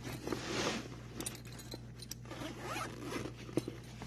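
Zipper on a soft-sided tool bag being pulled open in two rasping runs, with small clicks and knocks of handling in between.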